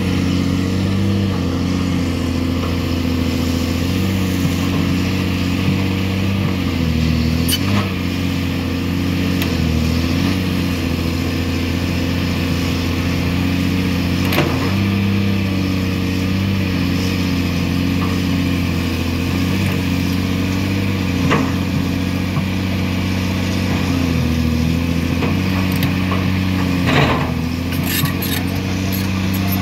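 Caterpillar 336D hydraulic excavator's C9 six-cylinder diesel running steadily under working load, its pitch dipping briefly several times as the hydraulics take the strain. Sharp clacks of the bucket in broken rock, several near the end.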